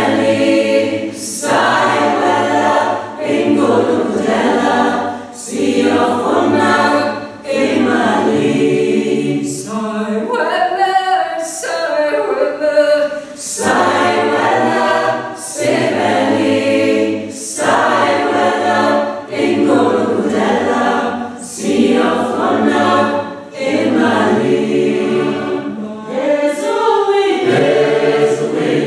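Mixed choir of men's and women's voices singing a cappella, in phrases broken by short breaths about every two seconds.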